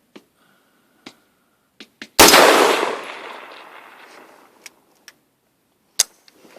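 AR-15 rifle firing a single shot about two seconds in, with an echoing decay of about two seconds, then one sharp click near the end. The rifle is failing to feed the next round after firing.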